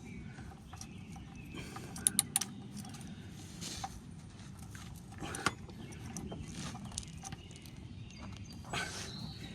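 Scattered metal clicks and knocks of a ratchet and 17 mm socket being worked on the engine's oil drain plug: a quick run of three sharp clicks about two seconds in and another knock about halfway through, with handling rustles between them.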